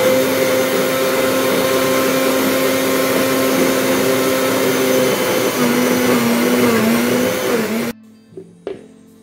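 Electric mixer grinder running at full speed, churning milk cream with water in its large jar to separate out the butter for ghee. Its motor whine holds steady, wavers slightly in pitch about six seconds in, and cuts off suddenly near the end.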